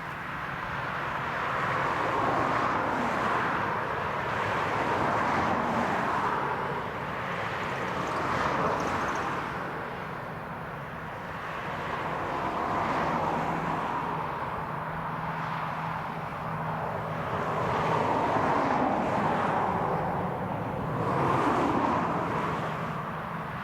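Farm tractors working a field: a steady engine drone under a broader noise that swells and fades several times as the machines move.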